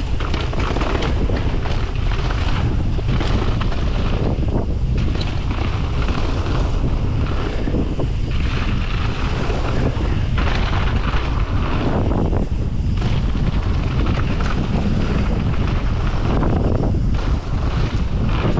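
Wind buffeting the microphone of a mountain bike's action camera over the rumble of tyres rolling on a dirt and gravel trail, with frequent knocks and rattles from the bike over rough ground.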